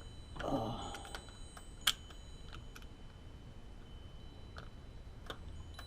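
Small clicks and taps of doorknob and lock hardware being handled while the long mounting screws are lined up with their holes, with one sharper click about two seconds in.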